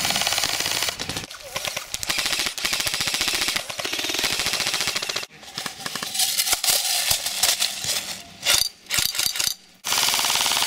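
Airsoft guns firing full-auto bursts, each a fast, even rattle of shots. Several bursts come one after another with short breaks between them.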